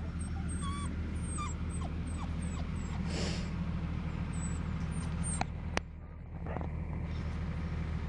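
Thai Ridgeback puppies whimpering in short high calls, frightened by the noise, over a steady low engine drone from tree-removal machinery. A single sharp click comes about two-thirds of the way through.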